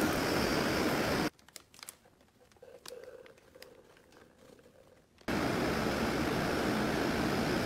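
Steady hiss of a powder-coating spray gun blowing powder, cutting off suddenly about a second in. A few faint crinkles and clicks follow as powder is poured from a plastic bag, then the spray hiss starts again suddenly about five seconds in.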